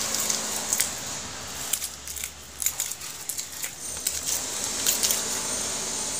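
Scales being scraped off a whole fish lying in a steel plate with ice: a run of short, irregular rasping scrapes and clicks.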